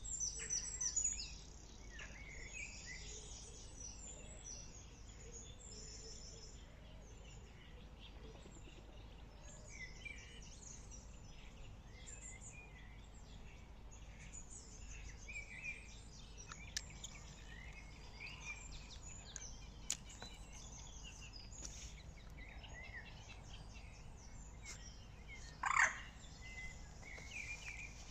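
Small birds chirping and singing, many short high chirps overlapping, with a short louder sound about two seconds before the end.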